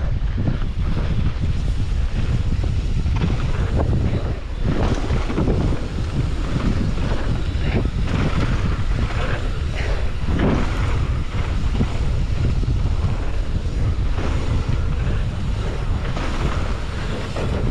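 Wind buffeting the microphone of a camera on a moving mountain bike, over the crunch of knobby tyres rolling on a dirt trail, with irregular clatters as the bike rattles over bumps.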